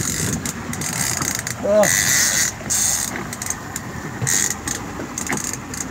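Fishing reel being cranked as a hooked fish is reeled in to the boat, with a fast whirring rattle over wind noise. A short vocal cry comes about two seconds in.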